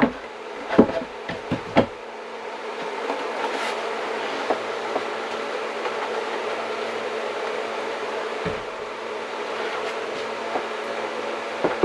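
Several sharp knocks of wooden trim boards being handled and set against the window opening in the first two seconds, then a steady buzzing hum.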